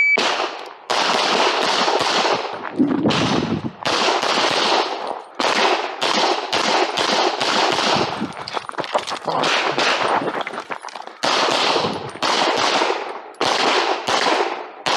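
Semi-automatic pistol firing loud strings of shots, mostly in quick pairs, with short pauses between the strings: a timed IPSC practical-shooting course of fire.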